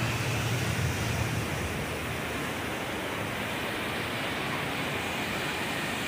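Waterfall rushing steadily, an even hiss of falling water, with a low rumble in the first second and a half.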